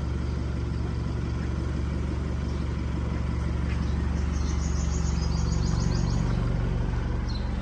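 Isuzu D-Max pickup's 3.0-litre diesel engine idling steadily. A short run of rapid high chirps sounds over it about halfway through.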